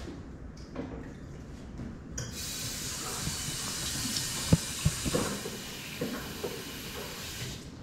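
Kitchen sink tap running. The water starts abruptly about two seconds in and is shut off near the end, with two sharp knocks about halfway through.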